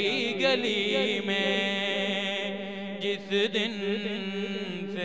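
A man singing an Urdu naat solo into a microphone, drawing out long, wavering, ornamented notes, with a short break about three seconds in.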